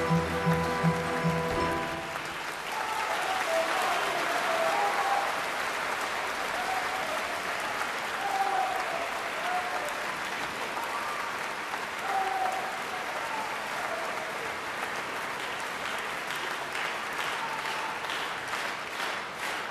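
A theatre orchestra holds its final chord, which stops about two seconds in, and then the audience bursts into applause. Near the end the clapping falls into a rhythmic beat in unison.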